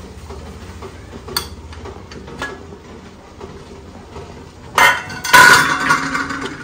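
Aluminium momo steamer being opened, its metal lid and tiers clanking together. A few light knocks come first, then a loud clatter about five seconds in.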